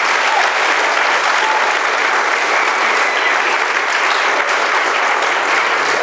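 Large audience applauding: dense, steady clapping from many hands, loud throughout.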